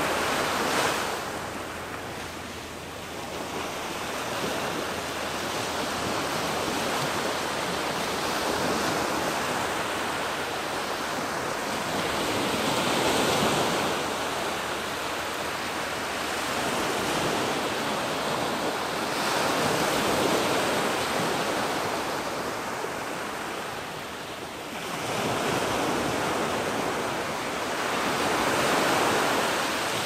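Ocean waves breaking and washing onto the shore: a continuous wash that swells and eases every several seconds.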